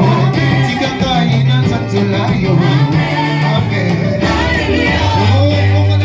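Live church worship band playing an upbeat song with bass, guitar and voices singing.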